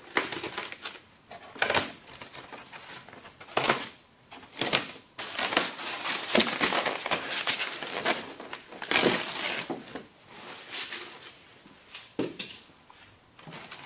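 Plastic packaging wrap crinkling and rustling in irregular bursts as it is handled and pulled back from foam model-airplane parts in a styrofoam box.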